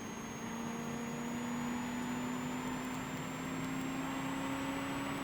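Commodore rally car's engine heard from inside the cabin, running steadily under light load, its pitch rising slowly as the car gathers speed, with a faint high whine rising alongside.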